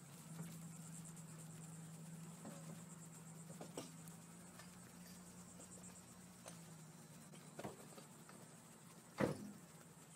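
Insects chirping in a steady, high, pulsing trill, over a low steady hum that stops about seven seconds in. A few short knocks cut through, the loudest near the end.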